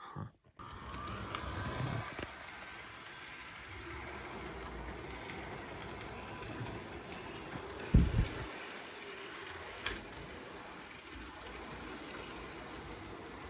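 Model train running on its track: a steady rolling hum from the locomotive's motor and wheels that starts suddenly just after the beginning, with a loud knock about eight seconds in and a small click a little later.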